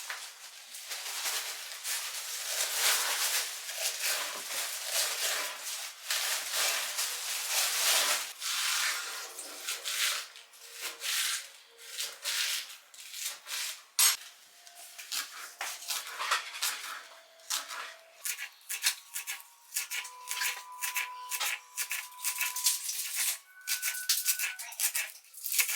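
Rustling and scraping from objects being handled, turning in the second half into a run of sharp clicks and light clinks.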